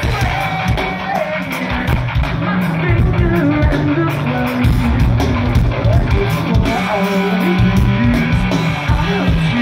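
Post-hardcore band playing live through the stage PA: electric guitars, bass and drums.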